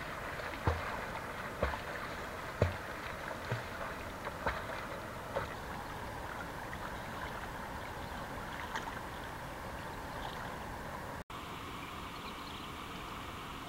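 River water splashing and lapping as a swimmer kicks along pushing a bamboo raft. Regular splashes come about once a second for the first five seconds, then give way to steady lapping water.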